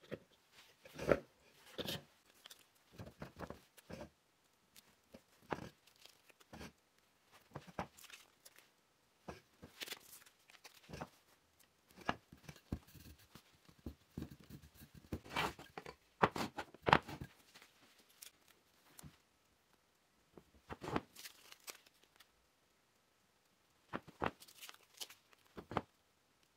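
Light pine parts of a wooden plant stand knocking and clicking against each other and the tabletop as they are handled, in scattered, irregular taps. Near the end, the rustle and light tearing of self-adhesive felt pads being peeled from their backing sheet and pressed onto the leg ends.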